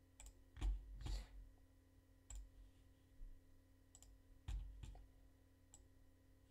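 Faint computer mouse clicks, about eight of them scattered over a few seconds, over a low steady hum.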